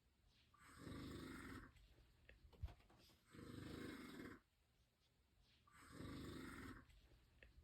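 Snoring in a slow, even rhythm: three snores in turn, each about a second long and about two and a half seconds apart, with quieter breathing between them.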